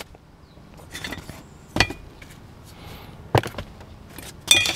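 Hand tools being handled: a few light clicks and clinks about a second apart, the last a quick cluster with a short ring.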